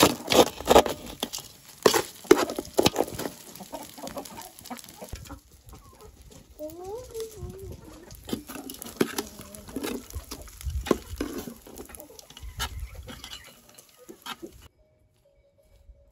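A metal spatula scraping and clinking against an aluminium cooking pot as cooked rice is scooped out, then hens clucking. The sound cuts off abruptly about a second before the end.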